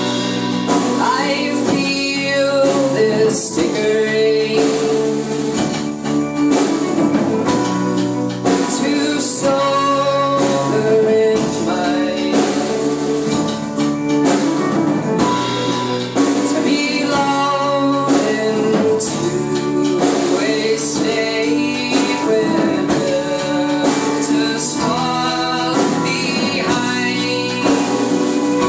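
Live folk band playing: strummed acoustic guitar with a singing voice carrying the melody.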